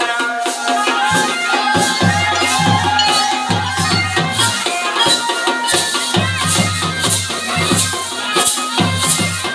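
Pahari folk music, a tandi song, with a steady beat of about two strokes a second carried by shaker-like percussion over a repeating bass line.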